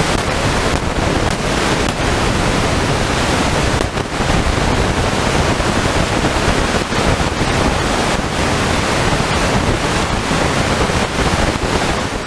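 Eton Grundig Executive Satellite portable radio hissing with FM static through its speaker, tuned to empty channels at the top of the FM band (107.5 and 108.0 MHz). A steady hiss with a few brief faint dips.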